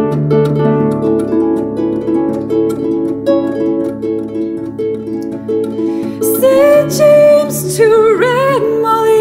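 Celtic harp playing an instrumental passage of plucked notes over a repeating low bass. About six seconds in, a woman's voice comes in singing a held melody with vibrato.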